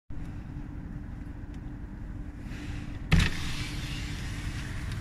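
Car cabin noise: a steady low engine and road rumble. About three seconds in there is a sudden thump, after which a brighter hiss of wind and road noise stays louder.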